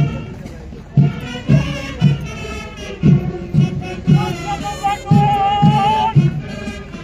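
Parade band music for a march past: a march with a heavy drum beat about twice a second under a melody. A single high note is held and wavers slightly for about two seconds in the second half.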